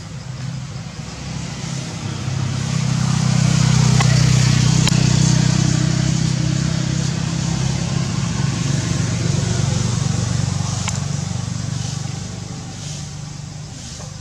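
A motor vehicle's engine hum that grows louder over a couple of seconds, holds, then slowly fades away.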